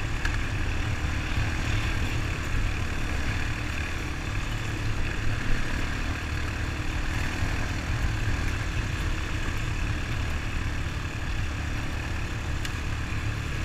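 Honda ATV engine running steadily under way, with a constant rushing noise over it.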